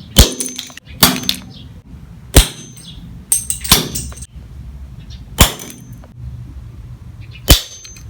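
Six sharp plastic clacks from the broken pieces of a Rubik's Cube knocking against a hard surface, one every second or two, some with a short high ring.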